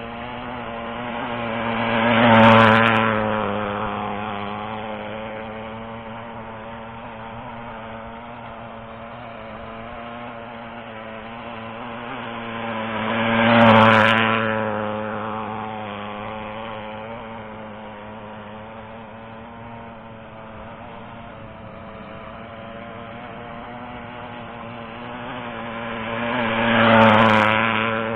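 O.S. .56 four-stroke glow engine of an RC outrigger hydroplane running flat out with its needle set rich, passing close by three times about twelve seconds apart. Each pass swells to a loud peak and drops in pitch as the boat goes away.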